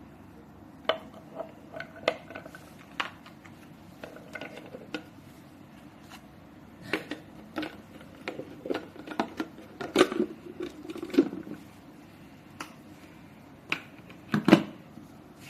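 Parts of a food processor being handled and fitted together: irregular clicks, clinks and knocks of bowl, lid and blade pieces, loudest about two-thirds of the way in and just before the end.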